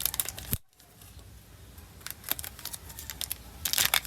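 Small sharp clicks and light rattling from small electronic parts being handled on a work surface, busiest near the end, with a brief sudden drop-out just after half a second in.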